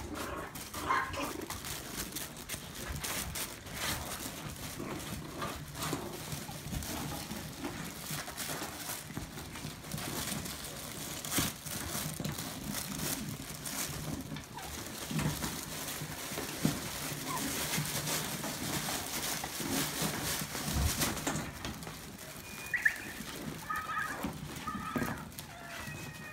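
Maltese puppies at play: paws scrabbling and scratching on the floor and crinkly fabric, with many small knocks and scuffs, and a few short high puppy squeaks near the end.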